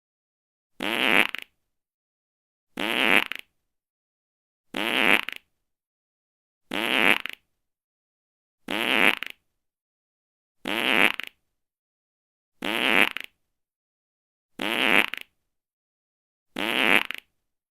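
A fart sound, the same short buzzy fart repeated nine times at an even pace, about one every two seconds, each lasting just over half a second.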